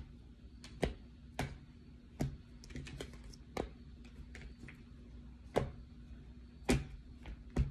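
Tarot cards being handled on a tabletop: a string of light, irregular clicks and taps as the deck is mixed by hand and cards are placed down.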